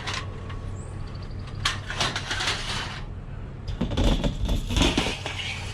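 Clatter and knocks of scrap items being shifted and loaded into a vehicle, in a few bursts with the loudest about four seconds in, over a steady low hum.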